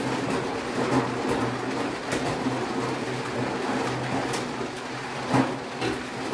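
OVO LUX 8000 egg sorting machine running with a steady hum, with scattered sharp clicks and knocks as eggs move along its conveyor and roll into the sorting lanes. The loudest click comes about five seconds in.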